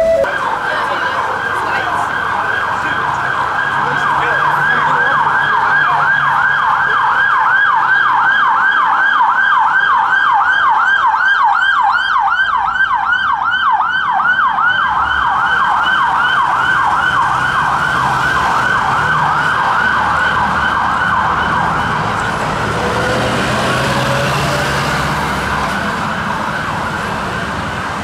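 Metropolitan Police Ford Transit van's siren sounding a rapid yelp, the tone sweeping up and down several times a second, growing a little fainter near the end.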